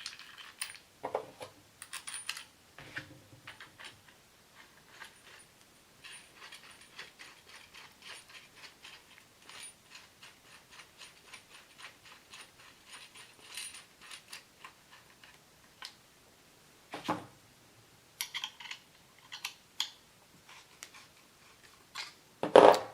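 Light mechanical clicking and tapping from a spring clamp and its mounting hardware being handled and fitted, including a long run of quick, even clicks, like ratcheting, over several seconds, and one louder knock about two-thirds of the way in.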